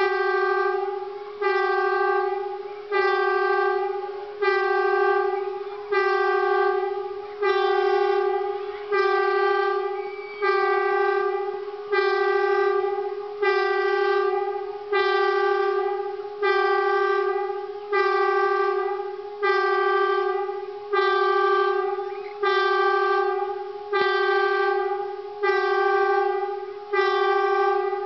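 Norwegian civil defence warning siren sounding the air raid alarm (flyalarm): a steady-pitched siren tone pulsed in short blasts of about a second, one every second and a half, each fading a little before it cuts off. The intermittent blasts are the signal for an imminent air attack, here sounded as a test.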